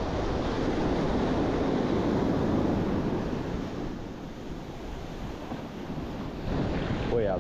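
Surf breaking and washing up the sand around the listener, with wind buffeting the microphone; the wash is louder for the first few seconds, eases off in the middle, and builds again near the end.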